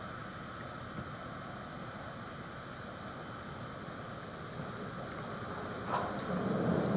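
Steady hiss of room background noise with a couple of faint ticks; about six seconds in, a louder rushing noise swells up.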